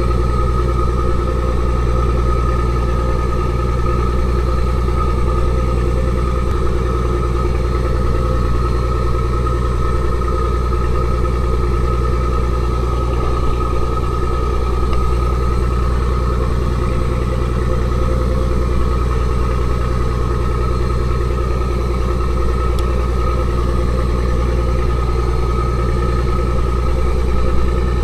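A fishing boat's engine running steadily at an even speed, a constant low drone.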